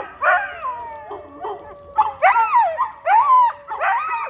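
Several dogs howling together in chorus: overlapping calls that rise and fall in pitch, with one long steady howl held under shorter yowls.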